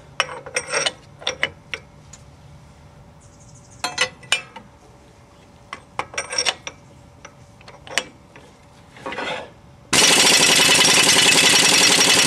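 Scattered clicks and knocks of metal tools being handled and a socket fitted, then about ten seconds in an air impact wrench starts hammering loudly and steadily on the rear hub nut of a 1969 MGB's Salisbury axle, a nut done up to 150+ foot pounds.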